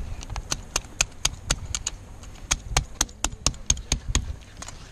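A fillet knife clicking as it cuts along a fish's rib bones: a quick, uneven series of sharp clicks, about four or five a second.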